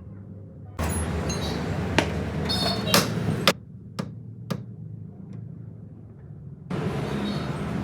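Five sharp metallic knocks and clinks between about two and four and a half seconds in, some with a brief ring, typical of hand tools striking steering parts during tie rod end work. A steady background noise drops out and cuts back in abruptly.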